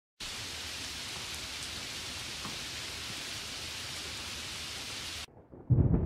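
Steady hiss of heavy rain that cuts off abruptly about five seconds in. Just before the end, a much louder deep rumble of thunder with sharp cracks sets in.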